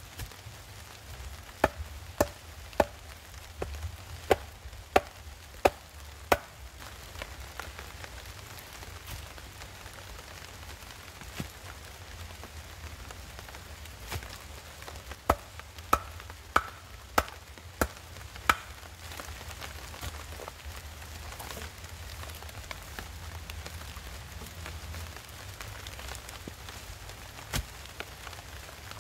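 Sharp wooden knocks of a pole being rammed down by hand into the forest floor to set shelter stakes. There is a run of about eight strokes a little over half a second apart, then a pause, then a run of six, and a single knock near the end.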